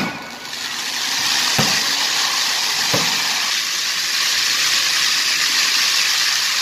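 Fireworks fountains shooting sparks upward with a steady hiss, which swells in over the first second and then holds. Three dull thumps come in the first three seconds.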